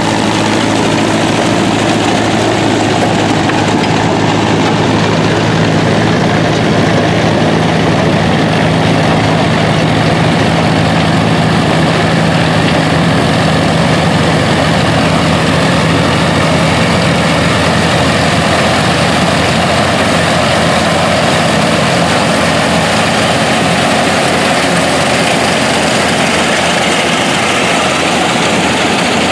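Vintage farm tractors running steadily while pulling corn pickers through standing corn, the engines' hum mixed with the constant noise of the picker machinery. A steady engine tone fades about two-thirds of the way through, and the machinery noise carries on.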